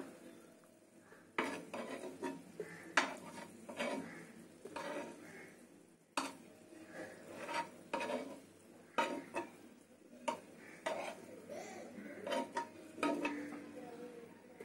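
Steel spoon scraping and clinking on a black flat tawa as pan-fried fish fingers are lifted off one by one and set into a steel plate, in irregular sharp clinks.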